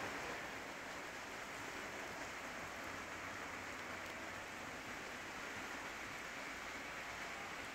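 Heavy rain pouring down: a steady, even hiss with no separate drops or thunder standing out.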